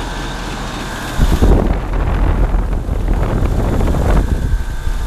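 Outdoor air-conditioning unit running with a steady hum and a few faint steady tones. From about a second in, a loud, uneven low rumble of air buffeting the microphone covers it for about three seconds.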